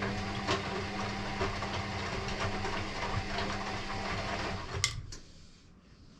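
Electrolux EW6S404WU washing machine running, with a steady motor hum and light knocks of the turning drum. It stops about four and a half seconds in, followed by two sharp clicks.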